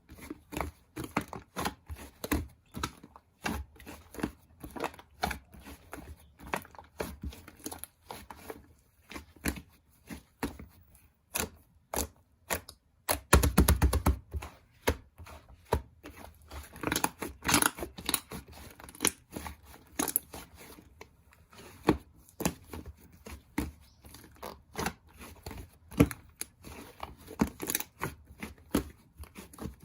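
Clay slime being squished and pulled by hand, giving a continuous run of sticky pops and crackles, with a quick dense burst of pops about thirteen seconds in.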